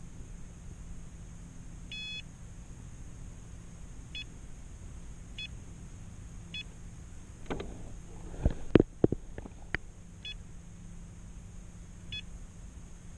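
Humminbird Helix 7 fishfinder's key beeps as its buttons are pressed to switch screens: one longer beep about two seconds in, then five short beeps spaced a second or more apart. A few sharp knocks, the loudest sounds, come between about eight and ten seconds in.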